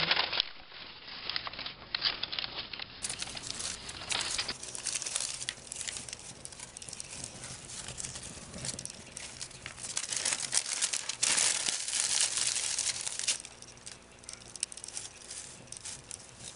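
Sheets of newspaper being crumpled and handled while burning, with irregular crackling and rustling throughout, loudest a little past the middle.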